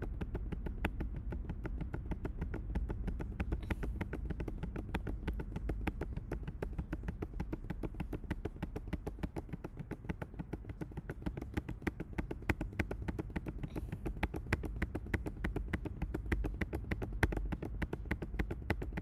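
Computer keyboard keys clicking in a fast, even run: the period key and space bar pressed over and over, several strokes a second, to type a long row of dots.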